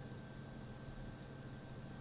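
Quiet room tone: a steady low hum and faint hiss, with two faint ticks about a second apart near the middle.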